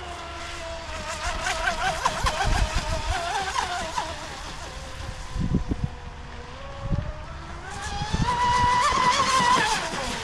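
Vector SR80 Pro RC speedboat running flat out, its 2300kV brushless electric motor on 4S giving a high-pitched whine that rises and falls in pitch as the boat races past. The whine is loudest and highest near the end, then drops away.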